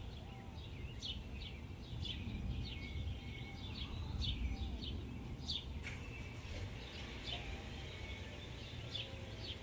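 Small birds chirping: many quick, short chirps that slide downward, repeated throughout, over a low rumbling noise.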